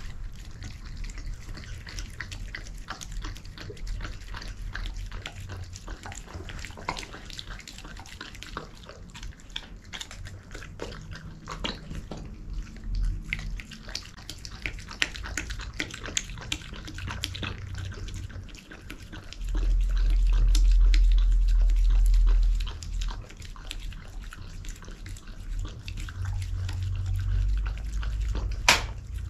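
Belgian Shepherd Groenendael eating wet food from a stainless steel bowl: steady chewing and licking, with many irregular clicks and smacks. About twenty seconds in, a loud low rumble lasts about three seconds, and a sharp click comes near the end.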